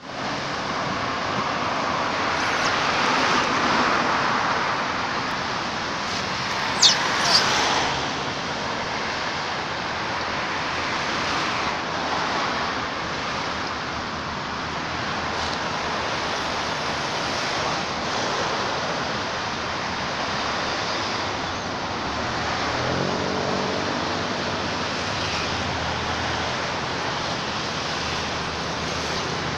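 Steady roadside traffic noise from passing cars and motorcycles. Two brief, sharp, high-pitched sounds stand out about seven seconds in. A vehicle engine passes around twenty-three seconds in.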